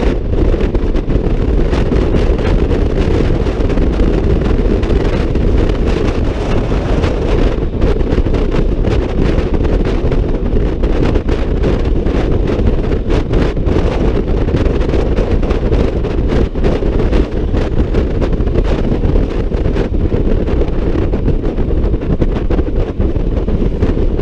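Steady, loud wind rush on the microphone from riding a Honda ADV 150 scooter at road speed, with the scooter's running noise underneath.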